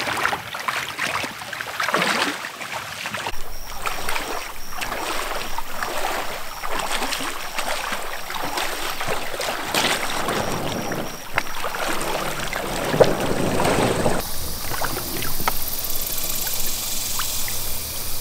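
Shallow, flowing river water splashing around wading feet and an inflatable raft being walked through by hand. About fourteen seconds in, the sound changes abruptly to a quieter, steadier outdoor background.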